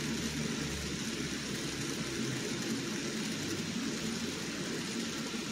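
N gauge model train running along the layout track: a steady motor hum with the rumble of its wheels on the rails.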